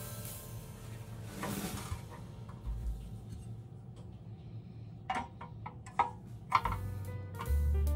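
Background music with held tones and low bass notes, and three sharp clicks or taps in the second half.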